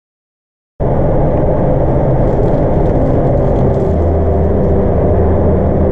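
Loud, steady machine drone with a low hum, starting abruptly just under a second in, typical of paint-shop equipment such as a spray-booth extraction fan or air compressor running.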